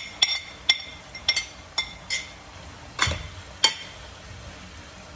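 A metal cooking utensil clinking against a pan as ground beef and basil are stir-fried: about seven sharp, ringing clinks at irregular intervals, the two loudest about three seconds in.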